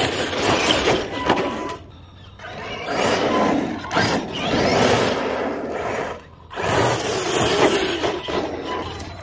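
Large RC monster truck driven hard on asphalt: motor whine rising and falling with the throttle, and tyres scrubbing on the pavement. It comes in three bursts, with short breaks about two seconds in and about six seconds in.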